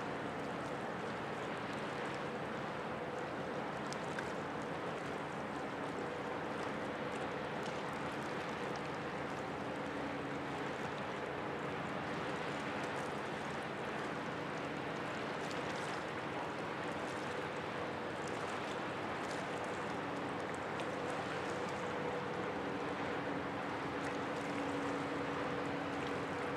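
A large 10,000-TEU container ship passing close at slow harbour speed: a steady low machinery hum with faint held tones under an even rush of water and air, growing slightly louder near the end as the bow comes by.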